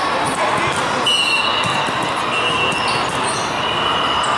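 Volleyball tournament hall ambience: scattered sharp thuds of balls striking hands and the hard court, over overlapping chatter and calls from players and spectators. Several short high squeals come about a second apart.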